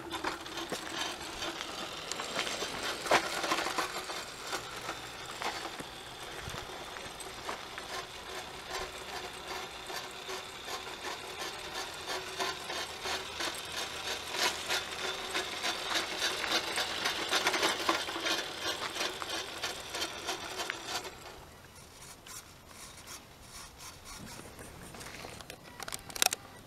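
Scratch-built radio-controlled model car's small electric motor and gear train running with a gritty, rasping grind over a steady hum; it drops away about 21 seconds in. The owner suspects the drive needs grease and a charged battery.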